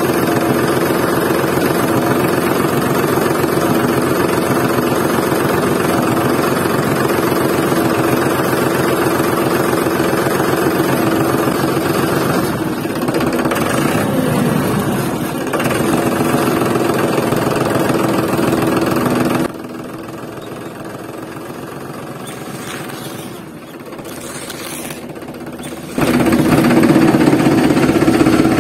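Tractor engine running steadily with a rapid chugging beat. It drops quieter about two-thirds of the way through and comes back louder near the end.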